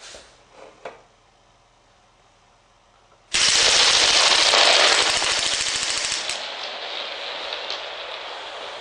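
Lego machine gun mechanism firing in a rapid clatter that starts abruptly about three seconds in, loudest for about three seconds, then carrying on a little quieter. A few faint clicks in the first second.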